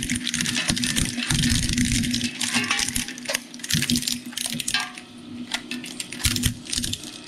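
Twin-shaft shredder's interlocking steel cutters crunching and cracking thin plastic letter shapes over a steady motor hum. The crunching is dense at first and thins to a few sharp cracks about five seconds in as the last pieces are pulled through.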